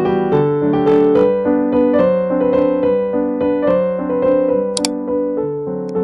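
Background music: a light piano melody of short notes, with two brief high clicks near the end.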